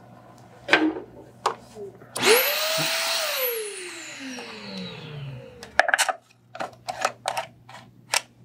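The Okki Nokki record cleaning machine's vacuum motor starts abruptly about two seconds in, runs for about a second, then is switched off and winds down, its pitch falling over two or three seconds. Afterward comes a quick run of light clicks as the record clamp is screwed down onto the record.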